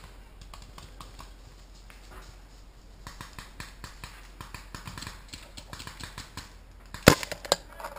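Faint, rapid pops of paintball fire further off, then one sharp, loud shot from a nearby paintball marker about seven seconds in, followed by a couple of quieter pops.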